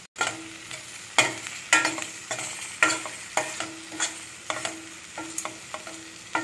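A spoon stirring brinjal, onion and tomato in a stainless steel pan of hot oil, with scraping strokes against the pan about twice a second over a steady sizzle, as chilli powder is fried in with the vegetables.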